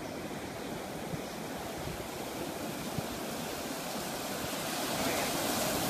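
Ocean surf breaking and washing up the beach: a steady rush of noise that swells slightly near the end.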